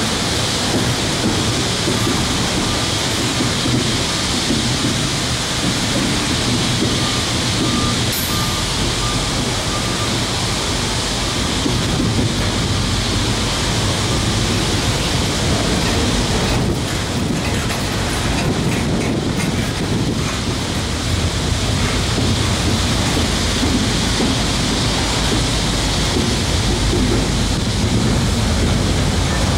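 Double-stack intermodal well cars loaded with shipping containers rolling past close by: a steady, loud rush and rumble of steel wheels on the rails.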